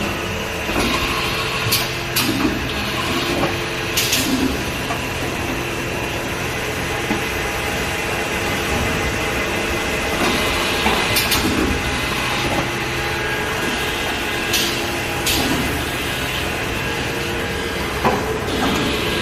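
Takisawa MAC-1VE CNC vertical machining center running: a steady machine hum with level tones, broken by about six short, sharp hissing clicks.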